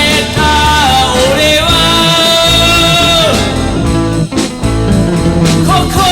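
Rock song with electric guitar and a sung melody; the vocal holds long notes that slide between pitches, with a brief break about four seconds in.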